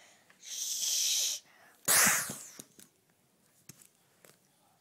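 A hissing rush lasting about a second, then about two seconds in a sudden loud burst that dies away within about a second: a homemade explosion sound effect for a man tied to missiles being blown up.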